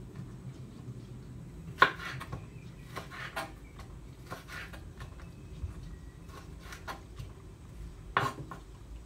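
Kitchen knife cutting leek and raw pork on a wooden cutting board: a few irregular sharp knocks of the blade meeting the board, the loudest about two seconds in and near the end, over a low steady hum.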